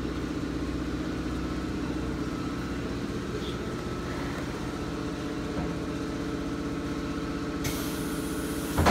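Vacuum forming machine running with a steady low motor hum. A high hiss comes in near the end.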